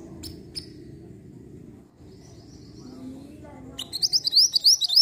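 Minivet (mantenan) calling: two short high chirps early, then near the end a loud, rapid run of sharp rising chirps, over a low background rumble.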